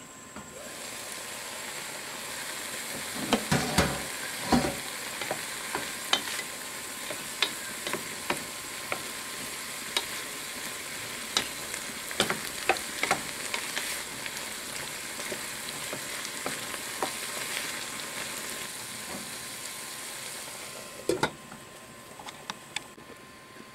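Green beans frying in oil and soy sauce in a pan, with a steady sizzle full of small pops and a few sharper knocks a few seconds in and again near the end.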